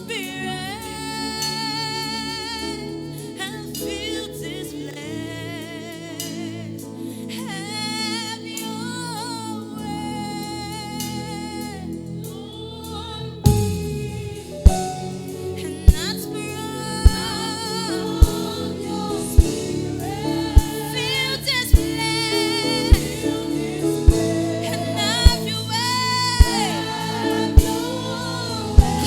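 Gospel worship singing over sustained instrumental chords. About halfway through, a low swoop brings in a drum that hits a steady beat a little more than once a second.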